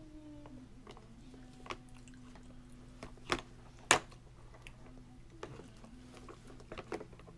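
A toddler feeding himself at a plastic high-chair tray: scattered small clicks and taps of hands, food and a spoon on the tray, with two louder knocks a little after the middle, the second the loudest. A steady low hum runs underneath.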